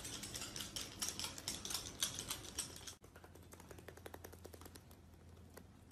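Claws clicking rapidly on a hard tiled floor as a small dog and a small parrot move across it. About three seconds in the sound changes abruptly to fainter, sparser taps of the parrot's toes on the tiles as it walks.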